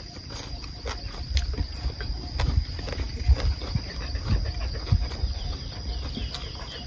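Steady high-pitched insect drone, one unbroken tone, with scattered clicks and low thumps over it.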